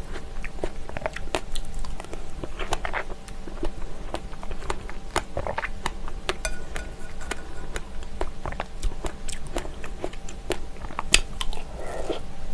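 A plastic spoon stirring and scooping thick plain yogurt with strawberries in a glass bowl: wet squelching with many small clicks of the spoon against the glass. A spoonful goes into the mouth near the end.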